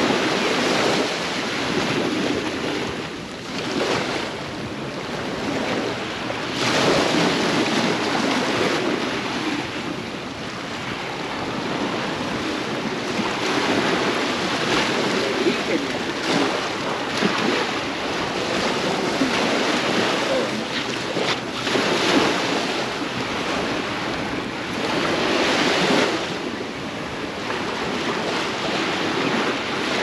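Ocean surf breaking and washing up on the shore, swelling and easing every few seconds, with wind on the microphone.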